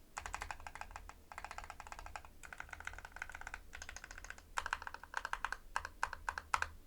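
Keystrokes on a modded Anne Pro 2 60% mechanical keyboard with a copper plate and lubed Halu-Halo switches. The modifier keys are pressed in quick runs of clicks a second or so long, and the strokes grow louder and more separate from about two-thirds in until they stop near the end.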